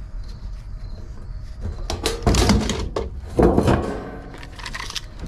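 Handling noise from a galvanized sheet-metal flue plate and a tape measure on plywood: rustling and scraping, with two louder scrapes about two and three and a half seconds in, over a low steady hum.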